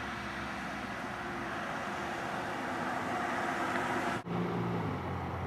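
Ford Probe GT exhaust as the car approaches, a steady engine and road sound slowly growing louder. About four seconds in it briefly cuts out, then a steady engine note follows.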